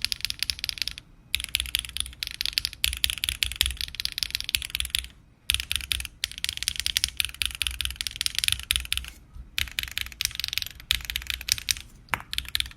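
Weikav Nut65 mechanical keyboard, 1.6 mm PCB with no foam and PCB gaskets, being typed on quickly across the alpha keys: a dense, clacky stream of keystrokes in runs broken by a few short pauses.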